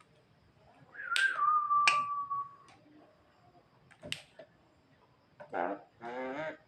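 Javan myna calling: a whistled note that drops and then holds for about a second and a half, sharp clicks about one, two and four seconds in, and two short, harsh calls near the end.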